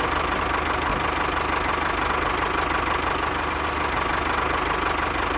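Miniature model tractor's small engine running steadily with a fast, even chugging.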